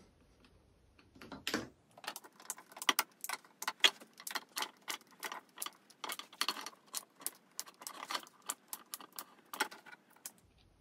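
The hinged tabs of a cable channel being pried open one after another with a small screwdriver: a quick, irregular run of sharp clicks that starts about one and a half seconds in and stops shortly before the end.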